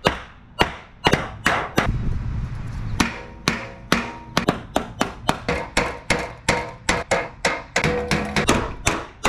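Hammer blows on steel sheet metal, struck over and over at about two to three a second, some leaving a short metallic ring: the bent panel of an RV generator cabinet being banged straight.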